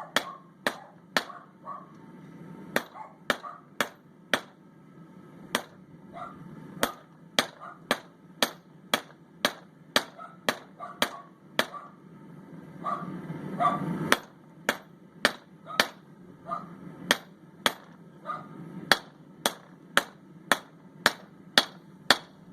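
Blacksmith's hammer striking hot steel bar on an anvil in a steady rhythm of about two blows a second, with a few short pauses, flattening one end of a squared half-inch bar into a lip.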